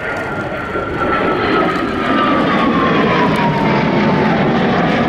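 Saab SK 37 Viggen's Volvo RM8 turbofan passing on a low-power 'whisper pass': a steady jet rush with a high whine that glides down in pitch as the aircraft goes by. It grows louder about a second in and stays loud.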